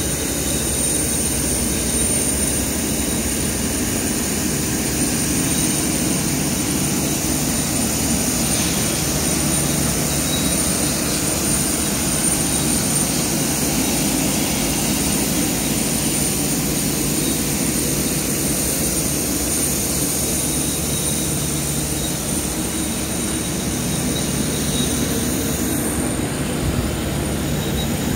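Steady jet turbine noise: a continuous whine with a high held tone over low rumble. The top hiss thins a couple of seconds before the end.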